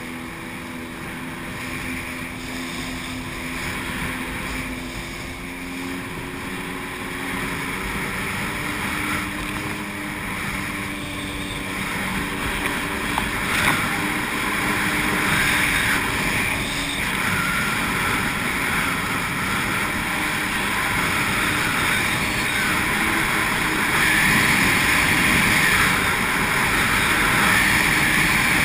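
Sea-Doo personal watercraft running fast across open water: a steady engine note under the rush of spray and wind. The engine pitch climbs a little over the first several seconds, and the water and wind noise grows louder as the run goes on.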